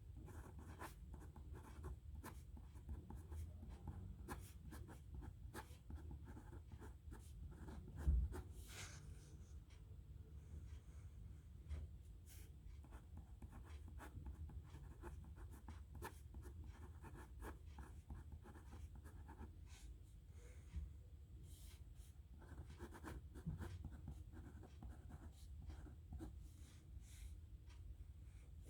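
Nib pen scratching across paper in continuous writing strokes, faint and steady, with one thump about eight seconds in.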